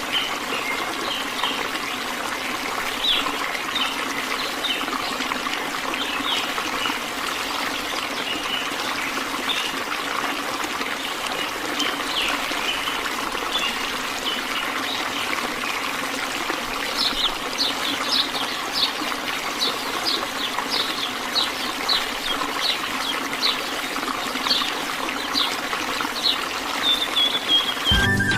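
Water trickling and running steadily, with small birds chirping over it; the chirps become quick and frequent from a little past halfway.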